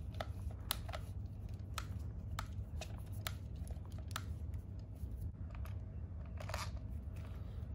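Scattered light clicks and ticks, irregularly spaced, as a small screwdriver bit turns screws into the plastic chassis of an RC car.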